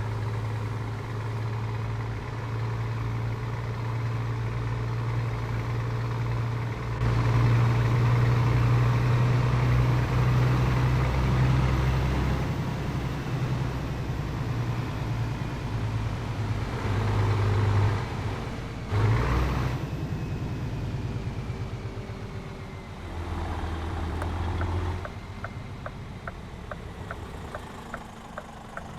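Scania 500S truck's 13-litre straight-six diesel with a straight-through exhaust, running with a deep exhaust rumble. It gets louder about a quarter of the way in and stays up for several seconds. There is a brief hiss about two-thirds through, and it drops to a quieter idle with light regular ticking near the end.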